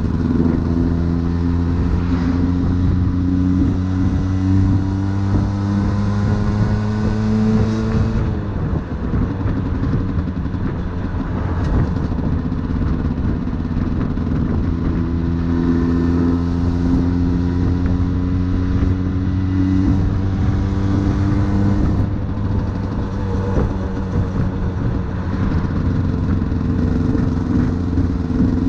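50cc Aprilia sport motorcycle's engine running on the move, its note slowly climbing under throttle, then falling away about eight seconds in. It climbs again from about fifteen seconds and drops near twenty-two seconds, with a steady rush of wind and road noise under it throughout.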